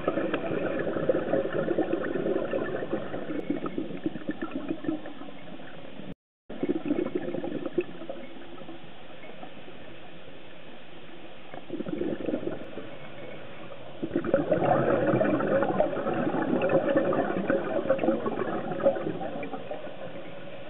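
Scuba diver's exhaled bubbles from the regulator, heard underwater through the camera's housing: bursts of bubbling a few seconds long with quieter stretches between, the longest from about fourteen to twenty seconds in. The sound cuts out briefly about six seconds in.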